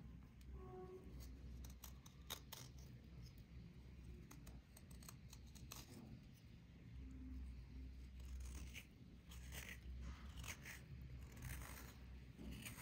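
Serrated knife blade scraping dried white crust off a small piece of cloth: a run of faint, short rasping strokes that come thicker in the second half, over a steady low hum.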